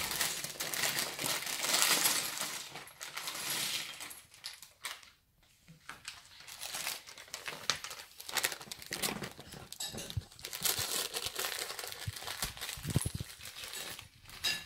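A plastic bag of Lego bricks crinkling as it is opened and handled, with the small plastic bricks clattering out onto a glass tabletop and clicking together as they are sorted.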